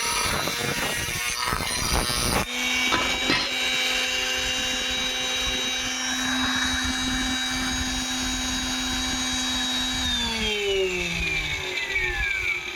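Small electric motor of a homemade grinder running: rough knocking and scraping for the first two seconds or so, then a steady whine as it spins freely. About ten seconds in it is switched off and the whine falls in pitch as it spins down.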